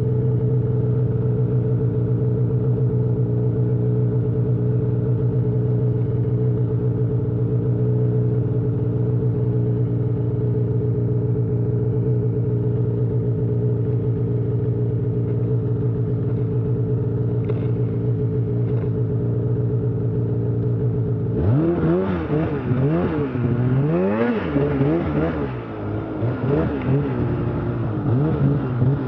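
Snowmobile engine idling steadily for about twenty seconds, then revved up and down repeatedly as the sled pulls away through deep snow.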